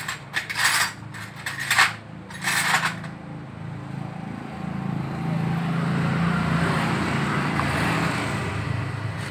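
Small metal parts clinking and rattling together in three short bouts over the first three seconds, then a steady low engine hum.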